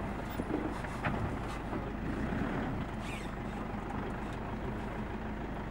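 Vehicle engine idling steadily, a low continuous hum, with a few faint clicks over it.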